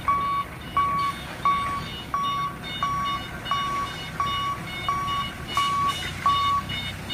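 HELI forklift's warning beeper sounding a steady, even beep about every 0.7 seconds, ten times in all, over the low steady noise of the running forklift.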